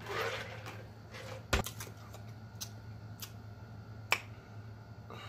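A short breathy rush right after a drink from a mug, then four sharp eating clicks and smacks spread over the next few seconds as chicken feet are pulled apart and eaten, the loudest about a second and a half in and another near the end.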